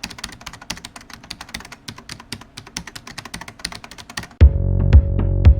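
Rapid clicking of a computer keyboard being typed on, several keystrokes a second. About four seconds in it gives way abruptly to much louder electronic music with a steady beat.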